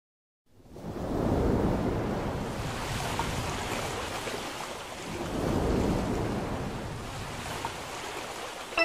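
Recorded ocean surf: waves washing in, swelling about a second in and again near the middle, then ebbing.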